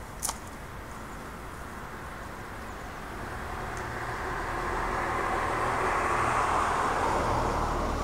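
A car passing on the wet street, its tyre hiss and low rumble swelling over several seconds and loudest about six to seven seconds in. About a third of a second in, a single sharp snip from loppers cutting a shrub branch.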